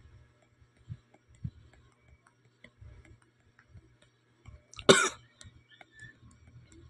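A person coughs once, short and loud, about five seconds in. Before it there are a few soft low thumps over a faint background.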